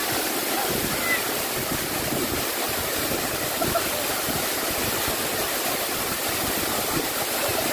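Waterfall pouring onto rock close by: a steady, unbroken rush of falling and splashing water.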